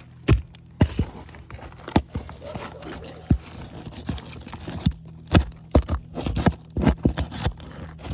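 Irregular sharp knocks and scrapes of a pry tool working under asphalt shingles to get at the roofing nails, over a steady low hum.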